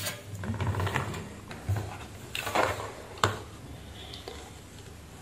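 Handling noise from a plastic welding-machine front panel being turned and moved on a workbench: scattered knocks and a scraping rustle, with a sharp click about three seconds in.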